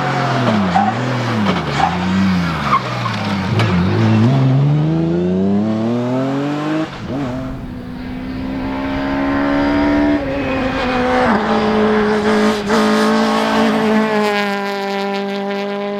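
Rally car engine revving up and down several times as the car slides, with tyres skidding, then rising steadily as the car accelerates. About seven seconds in, it gives way to a rally car engine held at high, nearly steady revs.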